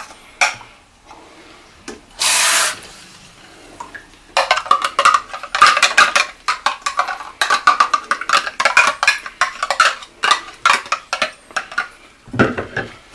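A metal spoon scraping and clicking against a small plastic container of minced garlic and a stainless steel mixing bowl, in a quick, busy run of clicks and scrapes over several seconds. There is a short rush of noise about two seconds in.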